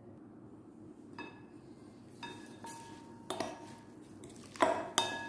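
Wooden salad spoon and fork knocking against a white ceramic bowl while tossing salad. Each knock makes the bowl ring briefly. There are about six knocks, spread unevenly, and the two loudest come close together near the end.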